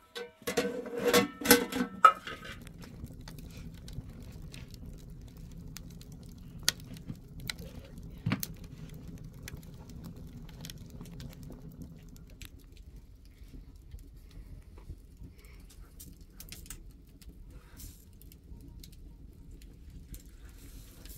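A metal cooking-pot lid clanks and rings against the pot several times. A wood fire then burns in the stove, crackling over a low steady rumble. The rumble drops away about halfway through, leaving faint scattered ticks.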